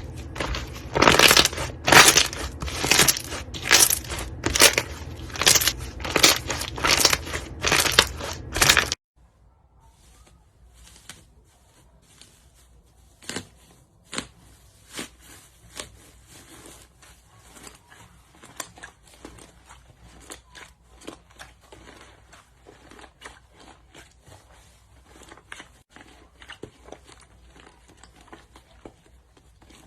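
Slime being squeezed and pressed by hand, giving repeated crackling, popping squishes about twice a second. About nine seconds in it cuts abruptly to a much quieter run of small, quicker crackles.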